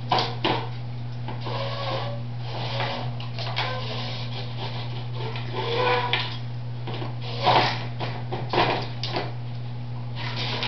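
Plastic bottles on a wooden treat-dispensing toy knocking, rattling and clattering against the frame as a dog spins and shoves them to get the treats out, in irregular bursts. A steady low hum runs underneath.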